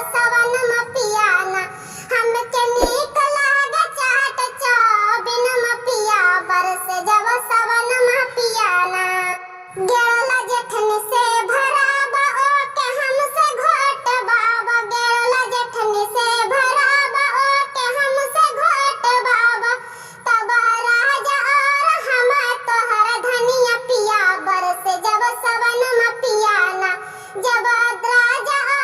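A kajri, a monsoon-season folk song, sung in a high, child-like voice in continuous melodic phrases with short breaths between them.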